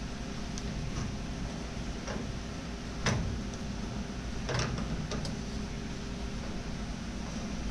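Scattered metallic clicks and ticks from hand-tool work on brake line fittings, the two loudest about three and four and a half seconds in, over a steady low background hum.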